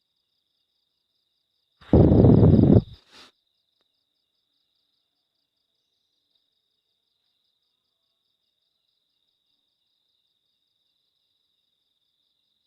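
Crickets trilling steadily at a high pitch. About two seconds in, one loud, low burst of noise lasts about a second.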